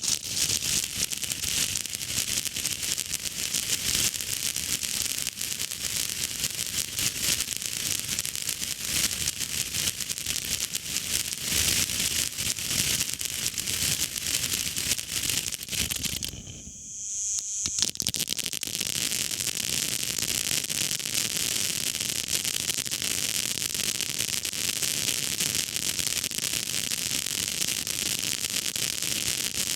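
Ground fountain firework spraying with a steady hiss and dense crackle. It drops away for about a second a little past halfway, then starts up again.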